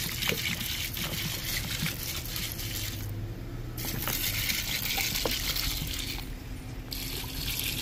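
Fruit punch being poured into a bucket of corn: a steady pouring hiss that breaks off briefly twice.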